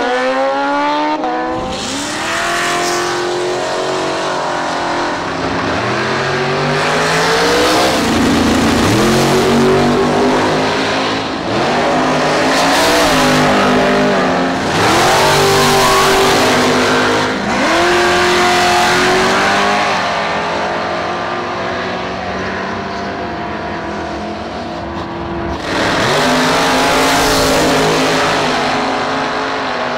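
Drag racing engines at full throttle in a string of runs, each pitch climbing and then dropping back at the gear shifts. Sportbike drag motorcycles come first, then drag cars launching in pairs.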